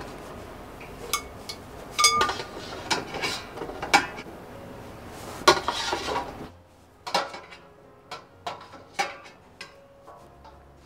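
Metal tongs clinking and tapping against a stainless steamer pot and a glass bowl as hot steamed vegetables are lifted out: a string of sharp, irregular clinks. A steady hiss under the first part stops abruptly about six and a half seconds in, and quieter clinks follow.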